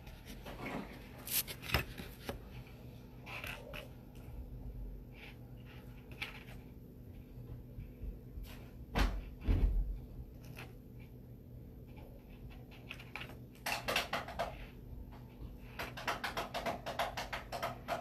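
Small scattered clicks and taps of beads being picked up, handled and strung on a tabletop, with a dull bump about nine seconds in and a quicker run of clicks near the end.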